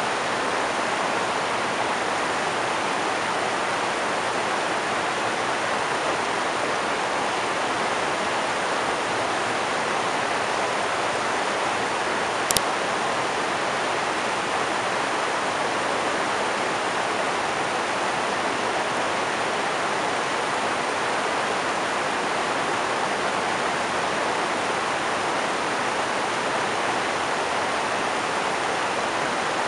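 River rapids: water rushing steadily over and between boulders, a continuous even noise. A single short click sounds about twelve seconds in.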